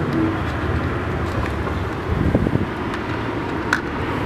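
Wind rumbling on the microphone over the steady hum of distant road traffic, with a sharp click near the end.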